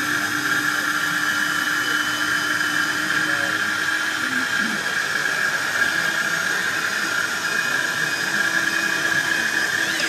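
Steady whining hiss of model tipper trucks' hydraulic systems raising the tipper bodies, with a low steady hum under it that drops out about four seconds in and returns near the end.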